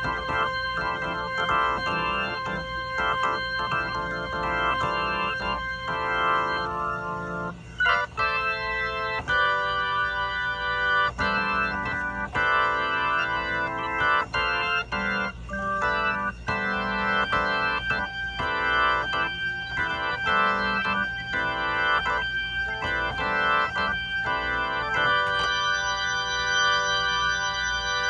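Organ chords played through a Leslie 2101 rotating speaker cabinet: short choppy chords at first, then longer held chords changing every second or so.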